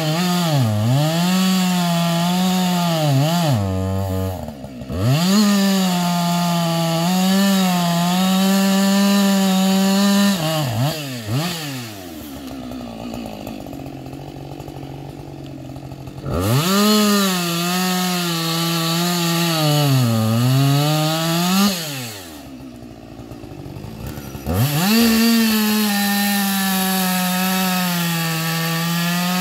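Husqvarna 560 XP two-stroke chainsaw with an Oregon .325 ripping chain, running at full throttle and cutting wood, its pitch sagging and recovering as the chain takes load. Twice it drops back to a quieter idle for a few seconds, once near the middle and once about three quarters through, then revs up again.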